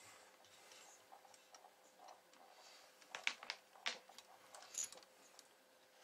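A few light clicks and taps from hands handling a small CB amplifier in its aluminium case and its power leads, with a quick cluster of sharp clicks about three seconds in, another about a second later, and a softer one near the end.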